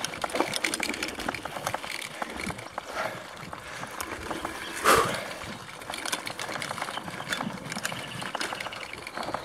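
Mountain bike riding over a dirt singletrack: tyre noise on the dirt with the bike rattling and clicking over bumps, and one sharper knock about five seconds in.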